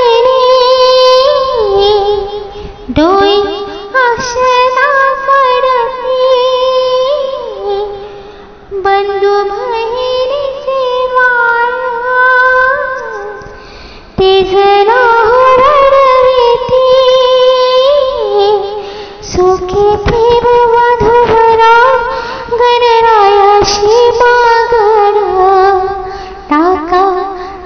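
A woman singing a Marathi mangalashtak, the blessing verses sung at a wedding, in long, ornamented melodic phrases with short breaks between lines.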